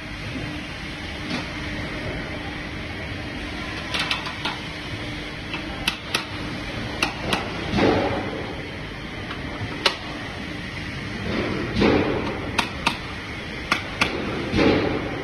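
Steady background hum with sharp clicks and knocks, unevenly spaced and a second or more apart, and a few short swells of louder rustling noise.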